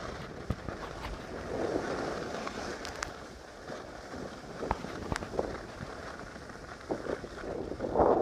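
Wind buffeting a phone's microphone while moving downhill on snow, with the hiss and scrape of sliding over packed snow. The rush swells about two seconds in and again near the end, and a few sharp clicks come through.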